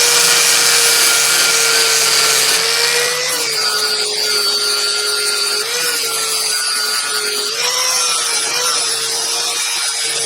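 Belt sander running on a coarse belt, grinding a heavily pitted old pair of steel linesman pliers clean of rust. The motor's steady hum dips and wobbles in pitch from about three seconds in, each time the work is pressed onto the belt, under a constant grinding hiss.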